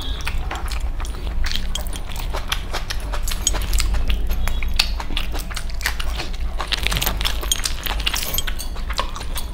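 Close-up eating sounds of chicken curry and rice eaten by hand: many quick wet clicks of chewing and lip smacking, mixed with light clinking of chunky metal rings and bracelets, over a steady low hum.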